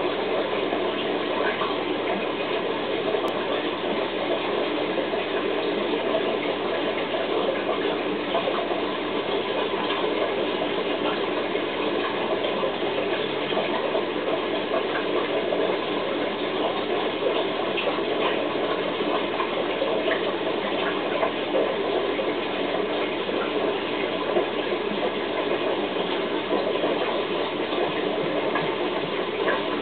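Aquarium filtration and aeration running: a steady rush of water with a constant low hum.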